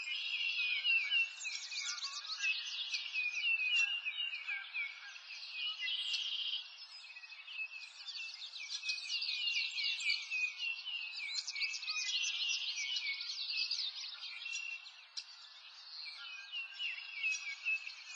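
A dense chorus of birds chirping and trilling, many short high calls overlapping without a break.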